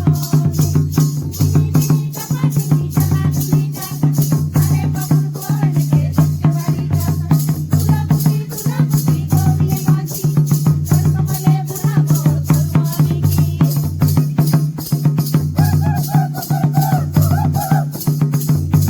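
Rhythmic music with a steady drum beat and a shaker-like rattle keeping time; a wavering melody line comes in about three-quarters of the way through.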